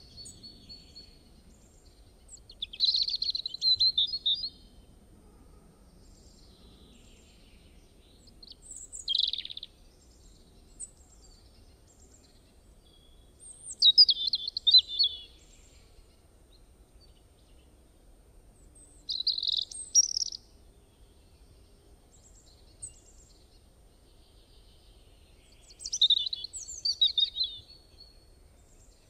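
A bird singing five short, high chirping phrases, several seconds apart.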